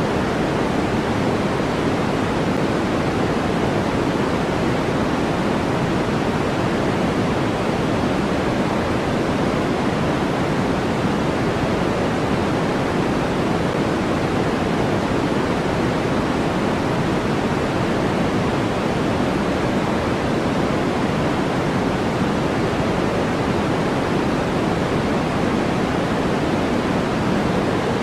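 Steady synthetic noise sold as white noise, an even rushing hiss that never changes. It has more weight in the low-middle than in the highs, so it sounds deeper than a bright hiss.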